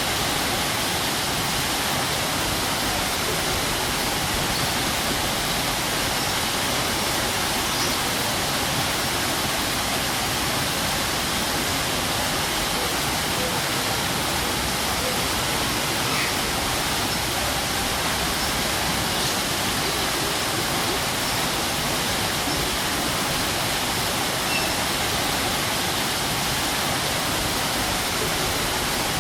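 Strong waterfall: water pouring and crashing in a steady, unbroken rush.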